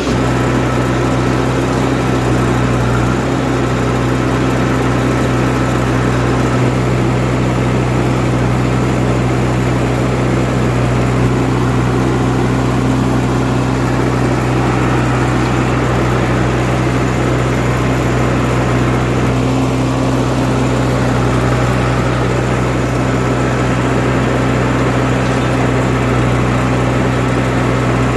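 Heavy diesel engine running at a steady speed, a constant low drone with no change in pitch.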